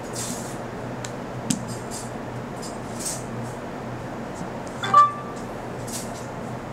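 Handling noise over a steady low hum: a few faint clicks and rustles, then a louder click with a short beep about five seconds in.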